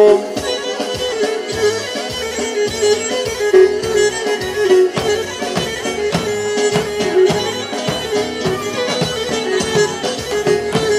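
Pontic lyra (kemenche) playing a fast, ornamented folk dance melody over a steady beat, with no singing.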